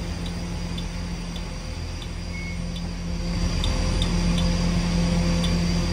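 Kawasaki R211S subway train rolling slowly to a stop, its running gear and onboard equipment giving a steady low hum and rumble. The hum grows a little louder about halfway through, and faint light ticks sound now and then.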